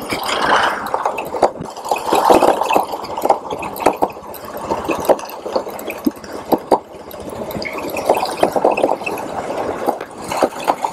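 Motorcycle riding over a rough, unpaved construction stretch: a rushing noise, likely wind on the microphone, with the engine underneath and frequent short knocks and rattles from the bumps.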